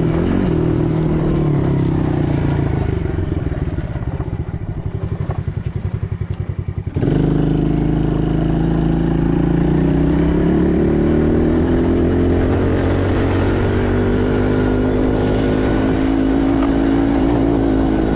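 ATV engine running under way. It eases off about two seconds in to a low putter in which the single firing pulses can be heard. At about seven seconds it suddenly opens up again and runs on at speed, its pitch rising and falling.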